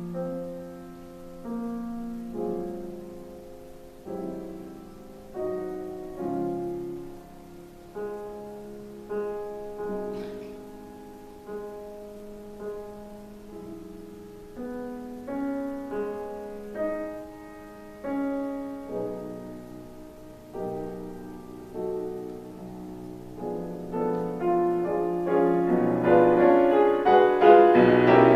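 Solo piano playing a slow, quiet passage of melody and chords, a new note or chord about once a second, swelling into a loud crescendo over the last few seconds.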